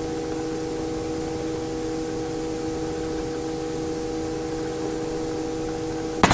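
Robinson R44 helicopter in flight heard from inside the cabin: a steady hiss with a few steady humming tones. Near the end it changes suddenly to a fast, even chop of the rotor blades.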